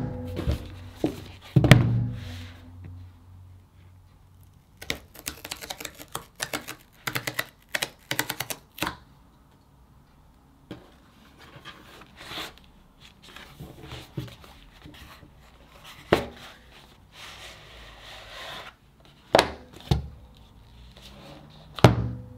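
A cardboard mailer box being handled and torn open: a quick run of sharp crackling tears as its perforated tear strip is pulled, about five to nine seconds in, with rustling of the card and scattered knocks of the box being set down and moved.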